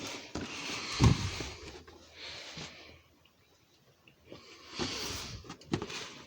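Animated snoring Santa toy playing its recorded snore: a long breath with a deep snort about a second in, a shorter breath, a pause of about a second, then another long breath near the end, with a few clicks.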